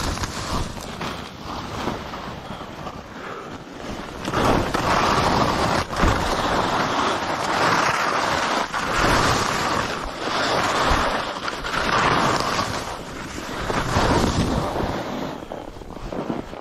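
Skis scraping and carving over snow through a run of turns, mixed with wind rushing over the microphone; the hiss swells and fades again and again as the skier turns.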